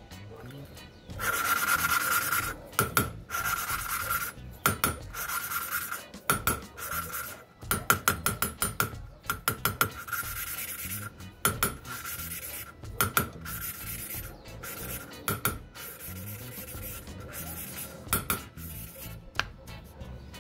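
Poppet valve being hand-lapped against its seat in a 250 cc motorcycle cylinder head, turned back and forth with a lapping stick in Permatex grinding paste: repeated gritty rasping strokes in spurts from about a second in, with a faint ring. This is a second lapping pass on a seat that is already bedded in.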